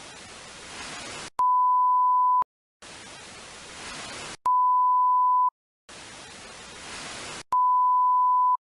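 Television static hiss alternating with a steady 1 kHz test-tone beep, much louder than the hiss. It goes three times: about a second and a half of hiss, a click, a one-second beep, then a short silence.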